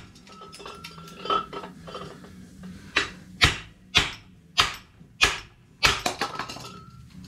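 Hammer blows on a punch driving a cylinder liner out of a Mercedes OM617 diesel engine block, metal on metal: a few lighter taps with a faint ring, then six sharp strikes about every half second, followed by a quick clatter of knocks just after the last one.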